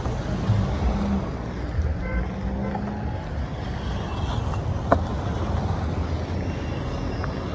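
Low, steady rumble of nearby vehicle engines and road traffic, with a single sharp click about five seconds in.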